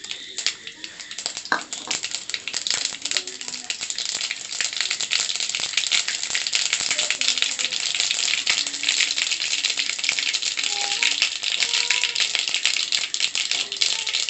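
Mustard seeds spluttering and popping in hot sesame oil in a metal kadai: a dense, steady crackle of tiny pops that builds up over the first couple of seconds. The popping is the tempering stage, the sign that the oil is hot enough and the seeds are bursting.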